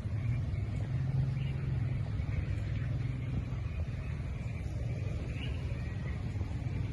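A steady low rumble. A low hum stands out in it for a couple of seconds, starting about a second in.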